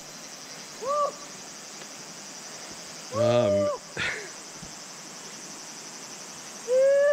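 A man's wordless groans and 'ooh's of strain from hard hiking, three short ones with rising-and-falling pitch, over a steady high drone.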